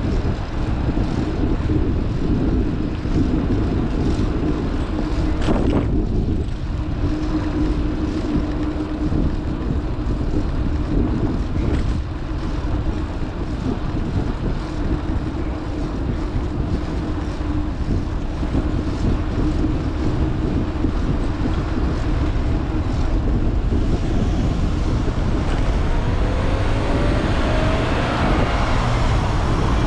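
Wind buffeting and road rumble on a bicycle-mounted action camera's microphone during a fixed-gear bike ride, with a steady hum underneath and a rising whine near the end.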